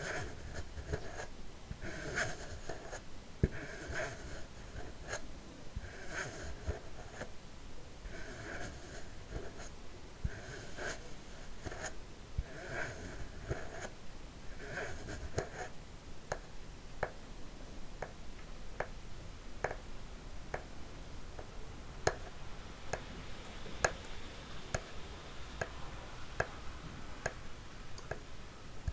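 Empty plastic bottle handled close to the microphone. For about the first half it crinkles in short bursts roughly once a second. Then it is tapped with single sharp taps a little over once a second.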